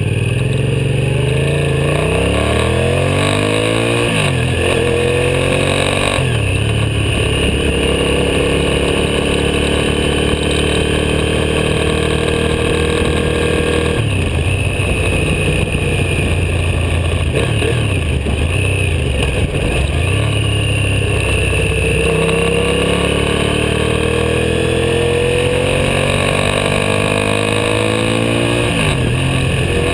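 Motorcycle engine pulling through the gears: the revs climb and drop sharply twice in the first six seconds as it shifts up, hold fairly steady through the middle, then climb again and drop with another shift near the end.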